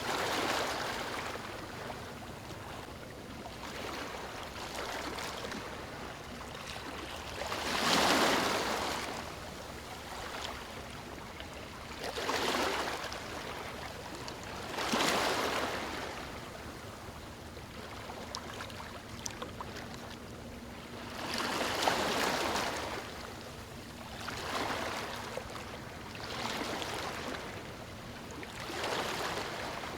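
Sea waves washing onto a beach: a steady hiss of water, with a wave surging in and drawing back every few seconds. The loudest surges come about eight seconds in and just past twenty seconds.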